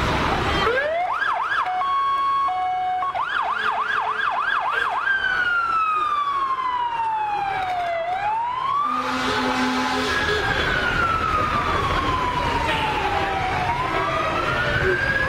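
Fire truck siren passing: quick yelping sweeps and a brief two-tone high-low about a second in, then a slow wail that falls, rises and falls again, rising once more near the end. A low engine rumble runs underneath.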